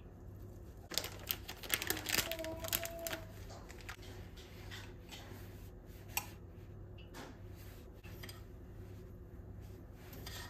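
Light clicks, taps and rustles of kitchen packaging and utensils being handled over ceramic bowls, busiest in the first few seconds, then single clicks every second or so, over a faint steady hum.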